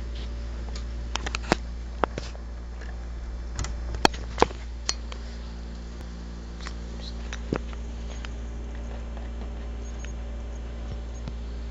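Scattered light taps and scratchy clicks as a cat plays at a balloon on a ribbon, a handful between about one and eight seconds in, over a steady low hum.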